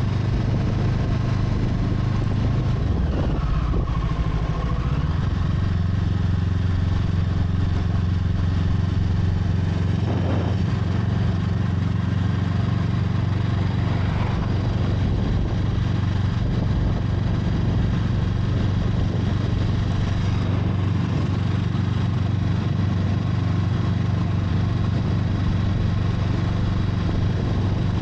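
Brixton Crossfire 500's parallel-twin engine running at a steady, even speed, with no revving.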